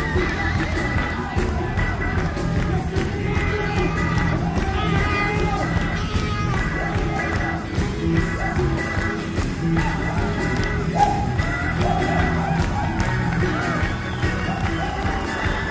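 A live rock and R&B band playing the song with a steady beat.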